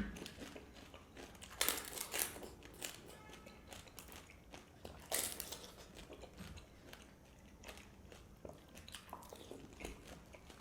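Golgappas (pani puri) being bitten and chewed: crisp puri shells crunching. The loudest crunches come about one and a half to two seconds in and again about five seconds in, with softer chewing crunches in between.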